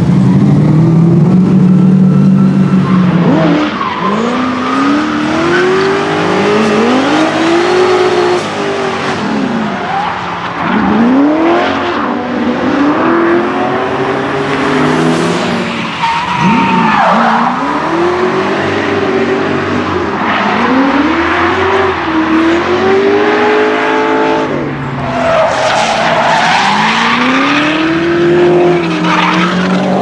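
Chevrolet LS1 V8, modified to about 600 hp, in a BMW E36 drift car. It starts on a steady low engine note, then from about three seconds in revs up and down over and over through long drifts, with the tyres squealing.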